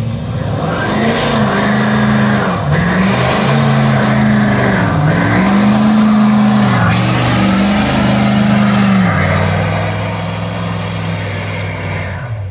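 Ford Super Duty pickup doing a burnout: its engine is held high, with the revs dipping and climbing again several times, over a loud hiss of spinning rear tires. About nine seconds in, the engine settles to a steadier, lower note.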